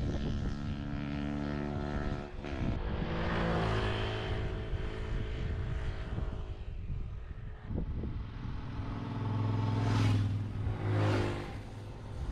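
Honda Super Cub C50's small single-cylinder four-stroke engine running on the move, its pitch shifting a few times. Two brief rushes of noise near the end.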